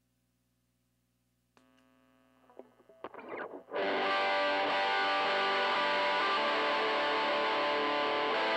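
Michael Kelly Patriot Custom electric guitar through a Joyo crunch distortion pedal and a tweed Deluxe 5e3-style valve amp: faint amp hum, a click about a second and a half in, a few scratchy noises, then a distorted chord struck about four seconds in and left ringing.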